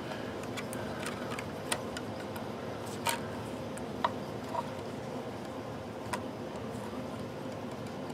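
Light, irregular clicks and taps of a plastic pickguard being handled and pressed down onto a Telecaster body while pickup wires are tucked beneath it, about five sharper clicks among fainter ticks. A steady low hum sits underneath.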